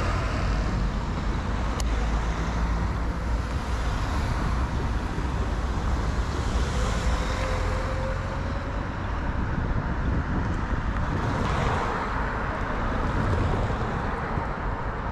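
Steady city road traffic, cars and other motor vehicles driving past, heard from a moving bicycle, with a low rumble throughout and a swell as a vehicle passes a little after ten seconds in.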